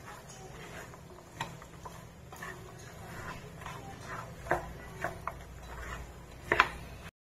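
A spoon stirring fox nuts in a sticky jaggery coating in a nonstick frying pan: scattered light clicks and scrapes of the spoon against the pan, over a faint low steady hum.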